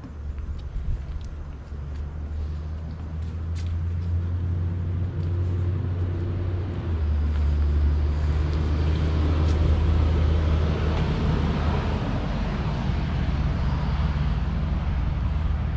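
A motor vehicle's engine running as a steady low hum, growing louder over the first several seconds and then holding, with its pitch stepping a couple of times. A few footsteps knock on wooden boardwalk planks near the start.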